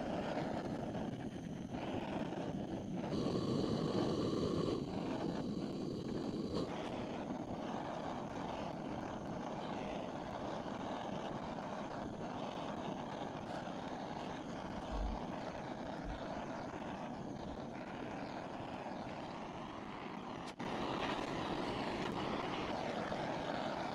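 Handheld butane blowtorch flame hissing steadily as it is played over wax crayons to melt them.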